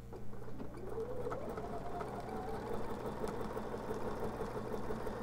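Bernina 780 sewing machine with a walking foot stitching a serpentine stitch through a quilt. Its motor speeds up over the first second or so, then runs steadily.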